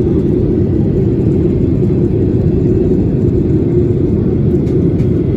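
Steady cabin noise inside a Boeing 737-800 in flight: an even, loud low drone of engine and airflow noise with no changes.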